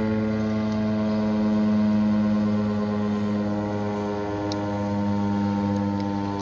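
Federal Signal STH-10A outdoor warning siren sounding a steady, sustained tone rich in overtones, swelling and fading slightly in loudness.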